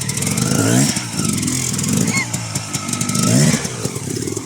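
Enduro motorcycle engine revving, rising in pitch twice: once about half a second to a second in and again about three seconds in.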